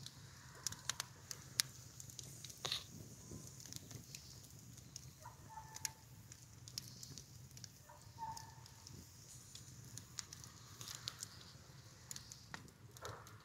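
Faint fire crackling: scattered sharp pops and snaps over a soft hiss, with two short calls about five and eight seconds in.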